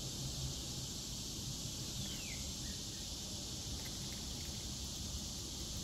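Steady high insect chorus over a low background hum, with one short falling whistle-like note about two seconds in.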